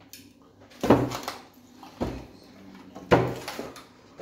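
Three short thuds about a second apart, the middle one the deepest.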